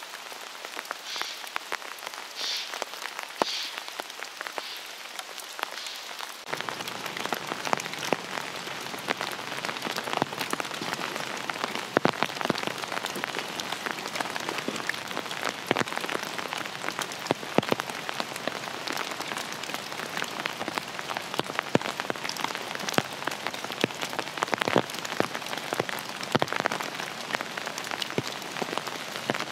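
Rain pattering on a fabric umbrella, a steady hiss dotted with many sharp drop hits, heavier from about six seconds in.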